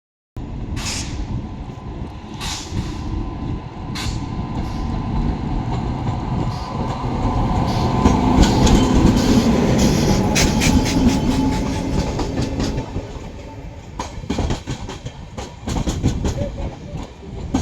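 Express passenger train running on the track, its rumble growing louder to a peak about halfway through and then easing, with rapid wheel clatter over the rail joints in the second half.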